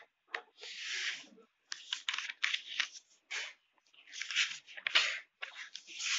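Pages of a thick textbook being turned and smoothed down by hand: a string of dry paper rustles and swishes, one after another.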